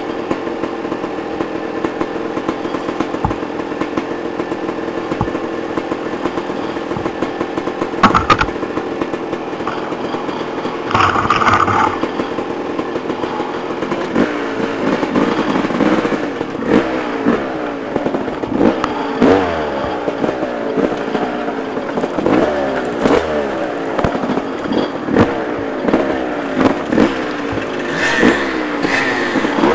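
Dirt bike engine running at a steady pitch, then from about halfway through revved up and down again and again in quick rising sweeps. There is a sharp clatter about eight seconds in and a short rattling scrape a few seconds later.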